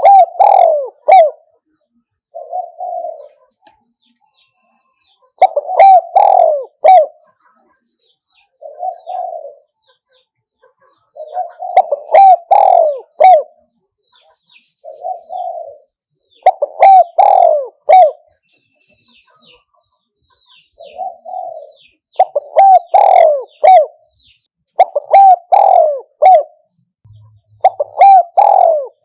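Spotted dove cooing: loud phrases of a few deep coos repeated every few seconds, with softer, shorter coos in between.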